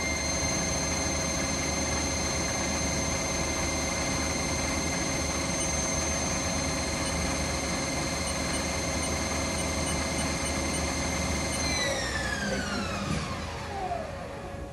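Haas TL-3 CNC lathe spindle running unloaded at 1500 RPM with a steady whine. About twelve seconds in, the whine slides down in pitch as the spindle winds down.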